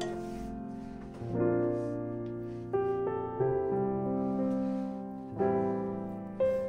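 Background piano music: notes and chords struck every second or so, each left to ring and fade.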